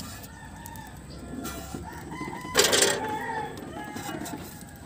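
A rooster crowing, with chickens clucking, and one brief noisy scrape or clatter about two and a half seconds in.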